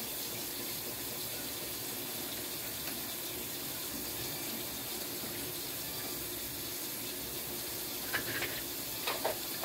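Kitchen tap running steadily into the sink, with a few brief clatters near the end.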